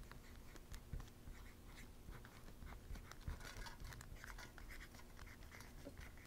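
Red Sharpie permanent marker writing on aluminum foil wrapped over cardboard: faint, short scratching strokes as letters are drawn.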